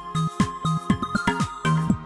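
A fanmade Samsung Galaxy S26 ringtone playing. It is electronic music with a steady beat of low, pitch-dropping drum hits under held high synth notes.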